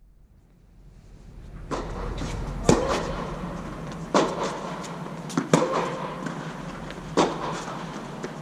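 Tennis rally: sharp knocks of racket strikes and ball bounces, with some trailing echo, coming roughly every second or so. The loudest is near three seconds in, and the sound fades up from near silence over the first second.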